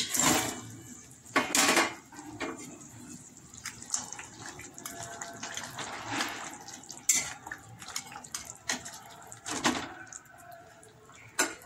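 Pieces of barramundi (bhetki) fish dropped with splashes into boiling curry gravy in a metal wok, then a spatula stirring through the bubbling liquid. There are a few short splashes and stirring sounds over a steady low bubbling.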